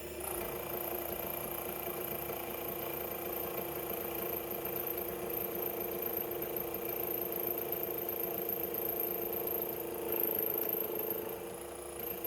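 Mini lathe running at a steady speed, its motor giving an even hum while it turns a sterling silver ring being shaped.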